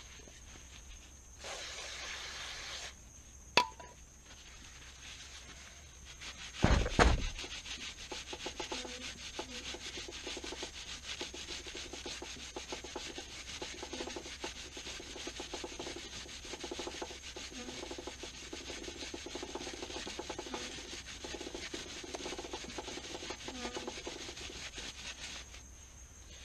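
A shop towel soaked in WD-40 rubbing steadily along a motorcycle's drive chain, wiping off old chain grease and dirt. Near the start there is a short hiss and a click, and a thump about seven seconds in, before the long stretch of wiping.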